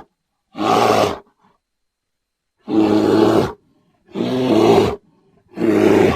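Bear roaring: four short roars, each under a second, with silence between them. Each roar starts and stops abruptly.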